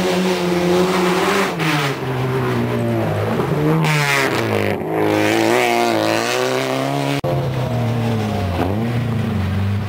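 Rally car engines on a gravel stage. A Fiat Palio rally car passes at speed, its engine note climbing and dropping several times, and after a brief click a second rally car's engine is heard coming on, lower and steadier.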